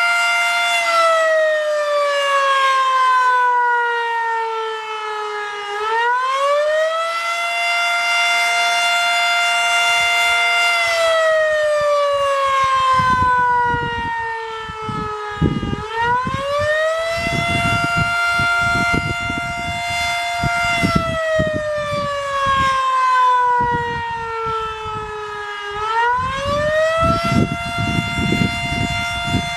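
W.S. Darley Champion fire siren sounding its full attack cycle: the pitch climbs, holds high for a few seconds, then slowly winds down, over and over about every ten seconds. Irregular low rumbles sit underneath from about halfway through.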